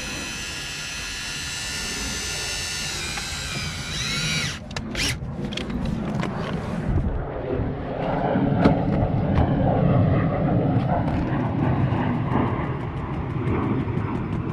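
Windshield removal line winch (WRD Spider3) whining as it draws the cutting line through the urethane bead, its note rising slightly before it stops about four and a half seconds in. A rough scraping rumble with quick ticks follows as the line keeps cutting through the bead.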